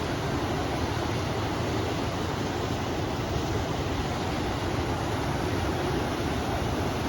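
River water rushing steadily, mixed with wind, as one even noise without breaks.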